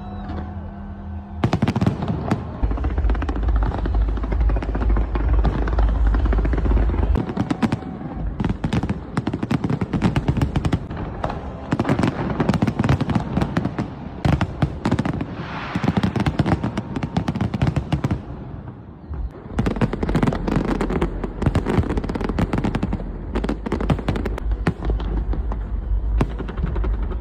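Fireworks display: a dense, rapid run of bangs and crackles, loud and almost unbroken, easing briefly about two-thirds of the way through before building again.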